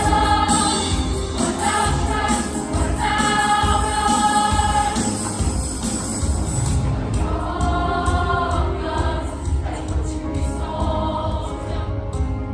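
Music with a choir singing long held notes over a steady low beat.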